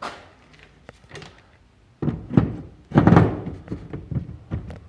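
Hard plastic clunks and knocks as a Berkley rod holder is handled against a plastic kayak's deck: one sharp click at the start, then a run of louder knocks from about two seconds in.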